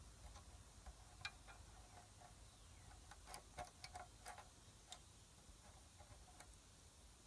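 Faint, irregular clicks of a screwdriver blade against the thin metal fins of a clogged radiator as the bent fins are pried straight, bunched most thickly in the middle.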